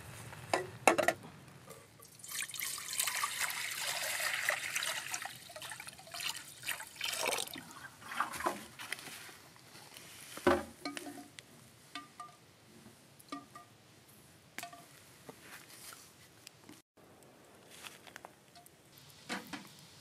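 Water pouring into a steel pot for several seconds, then scattered light knocks and clinks.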